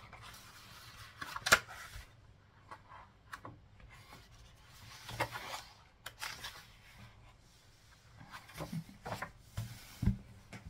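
Paper sketchbook being handled: pages turned and smoothed flat, with paper rustling and hands rubbing on the page. A sharp tap about one and a half seconds in is the loudest sound, and there are a few soft knocks near the end.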